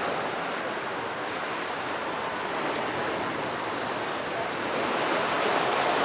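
Ocean surf washing onto the beach: a steady rush of water that swells a little near the end.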